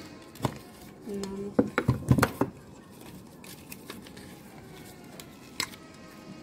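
Hard plastic clicks and knocks as a clear plastic cube display box is pried apart and its plastic base and clips are pulled off. There is a quick cluster of sharp clicks about two seconds in, and a single click near the end.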